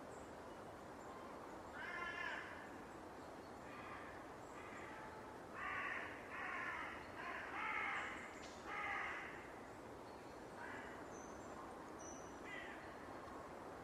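Crows cawing: a few scattered calls, then a run of about five loud caws some five seconds in, and fainter calls near the end, over a faint steady hiss.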